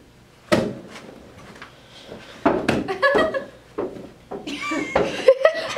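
A sharp knock and a few softer thuds of a small ball being kicked and handled, with short high-pitched voices and exclamations in the room.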